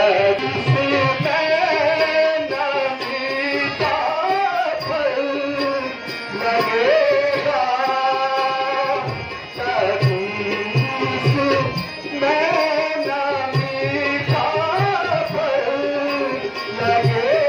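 A male voice singing a melodic line in the sung style of a Kumaoni Ramlila, accompanied by tabla strokes.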